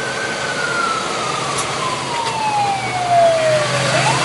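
Emergency vehicle siren in a slow wail: high at first, falling steadily in pitch over about four seconds, then sweeping quickly back up near the end. A fainter second siren sounds higher up, over a steady low hum of engine and road noise.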